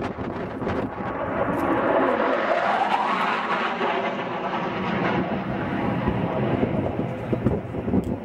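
Hawker Hunter jet flying a fast, low pass and pulling up into a climb. Its engine noise swells to a peak about two to three seconds in, with a sweeping shift in pitch, then carries on a little less loud.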